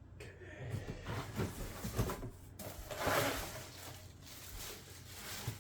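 Plastic vacuum-cleaner parts and their packaging being handled: scattered light knocks and clatter, with a louder rustle about three seconds in.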